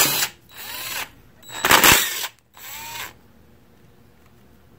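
Cordless impact driver backing out the bearing cap bolts of a Ford 9-inch third member. There are two loud hammering bursts, one at the start and one about 1.7 s in, each followed by the motor spinning the loosened bolt out with a rising and falling whine.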